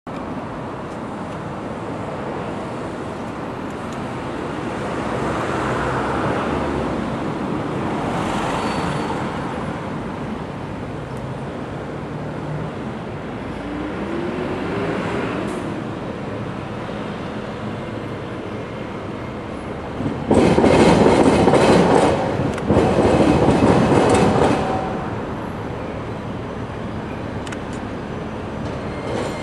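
Street traffic running steadily, then the steel wheels of an Iyo Railway 2100 series low-floor tram clattering loudly over the rail-level diamond crossing in two stretches, about two-thirds of the way in.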